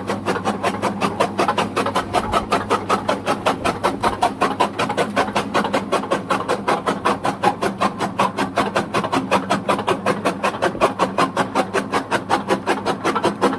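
Electric chaff cutter chopping green fodder: the flywheel blades strike in a rapid, even rhythm of about six cuts a second over a steady motor hum.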